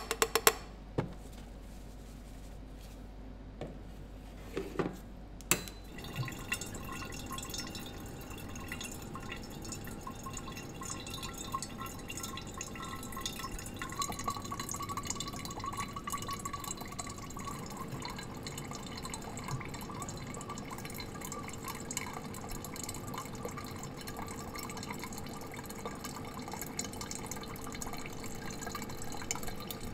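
Brewed coffee trickling and dripping from a Curtis batch brewer's filter basket into a stainless-steel airpot, a steady stream that starts about six seconds in. Before it, a few metal knocks as the airpot is set in place.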